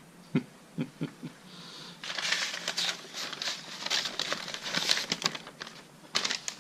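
Paper being handled and its pages turned: a few soft taps, then about three seconds of dense crinkling and rustling, and another short crinkle near the end.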